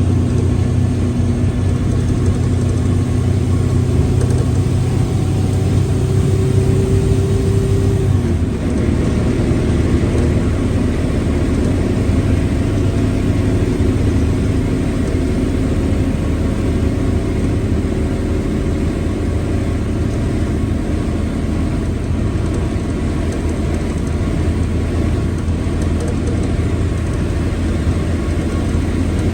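Mercedes-Benz OF1721L BlueTec 5 bus diesel engine running under way, with a growling whine from its gearbox. About eight seconds in, the engine note steps down in pitch, then it runs on steadily.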